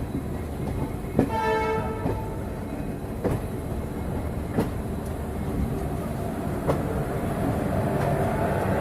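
Indian Railways train running on the track with a steady rumble, its wheels clicking over rail joints at uneven gaps. A short horn sounds once, about a second in, lasting under a second.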